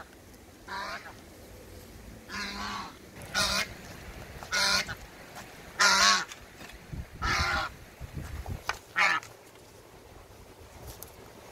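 Domestic goose honking repeatedly while being carried head-down by its legs: about seven short, harsh calls a second or so apart, stopping a couple of seconds before the end.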